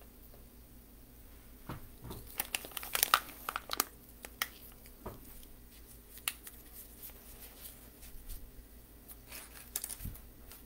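Plastic wrapping crinkling and rustling in someone's hands, with sharp crackles and clicks coming in a cluster about two seconds in and again near the end.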